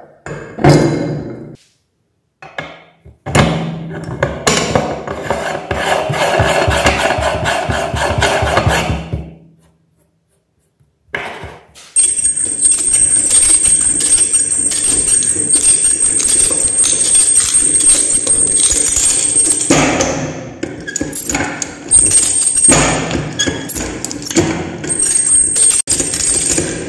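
Metal parts of a hand-cranked cast-aluminium meat grinder knocking and scraping as the cutting plate and ring are fitted. After a short pause comes a long run of dense clinking and rattling from glass marbles in a glass bowl.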